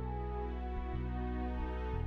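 Background music of steady, held chords.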